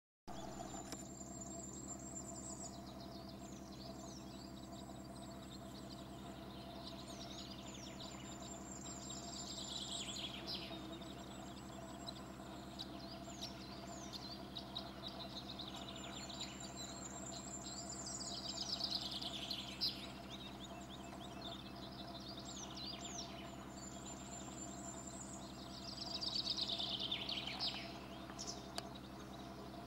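A songbird singing short repeated phrases about every eight seconds, each a high thin trill followed by a quick cascade of falling notes, over a steady low hum.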